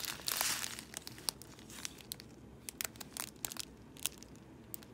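Clear plastic packet of diamond painting drills crinkling as it is handled, with a louder, denser crinkle about half a second in and scattered sharp crackles throughout.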